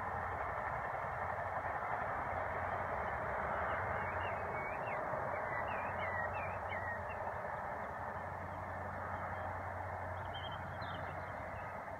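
A small bird chirps a quick run of short notes about four seconds in, and briefly again near the end, over a steady rushing background noise.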